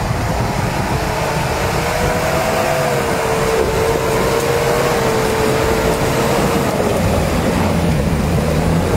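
Off-road 4x4 engine running hard under load, a steady low rumble with a whine that wavers in pitch from about a second and a half in until about seven seconds in.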